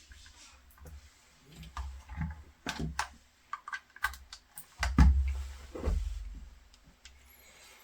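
Irregular clicks and light knocks from handling a wire while wrapping it in electrical tape, with a couple of heavier low thumps about five and six seconds in.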